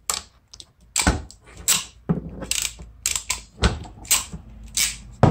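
Hand wire crimpers clicking in a string of irregular sharp clicks as the handles are squeezed, crimping a female spade connector onto the positive wire of a fuse link.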